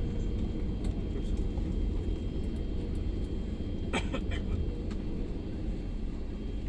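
Steady low rumble of an airliner cabin as the plane rolls along after landing, the noise of the engines and wheels. A brief cluster of sharp clicks or rattles sounds about four seconds in.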